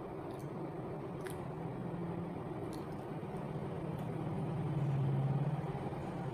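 A low, steady motor hum that swells to its loudest about five seconds in and then eases off, with a few faint clicks in the first three seconds.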